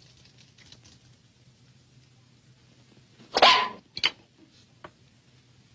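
A dog barks once, loudly, about three and a half seconds in, then gives a second, shorter bark.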